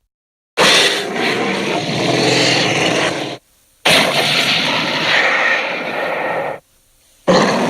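Designed Tyrannosaurus rex roar sound effects: three loud, drawn-out roars, each lasting about three seconds, separated by brief silences. The third roar begins near the end.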